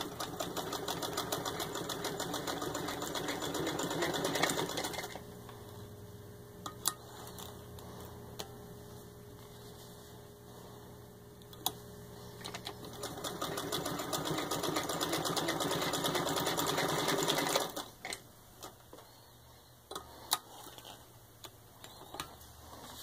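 A 1920 Singer 66-1 sewing machine, turned by a hand crank, stitching through six layers of denim with rapid, even needle strokes. It sews in two runs of about five seconds each, the second starting about halfway through. A few light clicks come between and after the runs.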